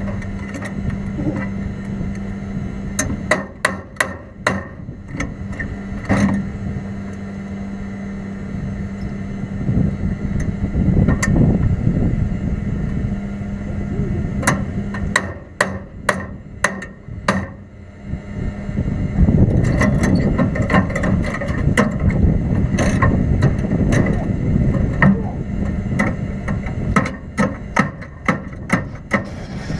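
Fire burning in the engine bay behind the seats of a Can-Am UTV race car, with irregular sharp pops and cracks throughout. A steady low hum fades out about halfway through, and a louder rushing noise fills the second half.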